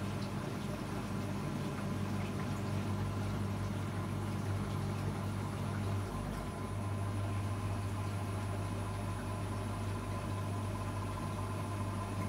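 Zanussi integrated washing machine's drain pump humming steadily as it empties the drum ahead of the intermediate spin, with a brief dip in the hum about halfway through.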